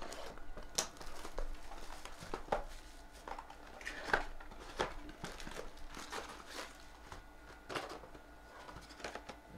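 Plastic shrink-wrap being picked at and torn off a sealed cardboard trading-card box, crinkling and crackling irregularly, with the box's cardboard flaps being opened near the end.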